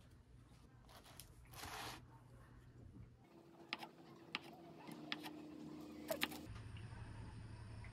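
Chef's knife slicing a peeled hard-boiled egg on a wooden cutting board, the blade tapping the board in a handful of sharp clicks in the second half.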